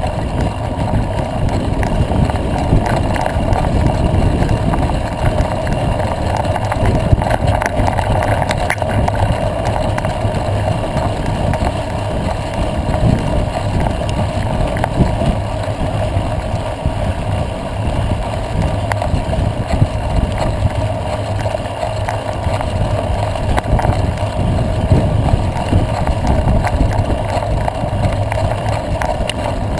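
Steady wind noise on the microphone and road rumble from a camera moving along a road behind a cyclist, with a constant drone and scattered small clicks.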